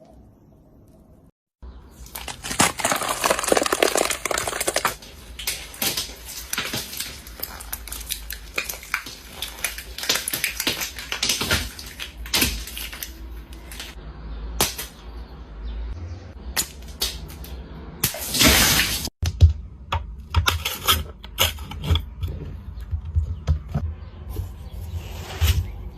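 Rapid, irregular clicking, tapping and scraping of small hard objects being handled, starting suddenly about a second and a half in and breaking off briefly just before the final third.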